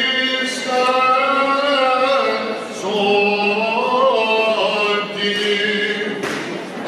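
Male cantor singing Byzantine chant into a handheld microphone, long held notes with ornamented turns.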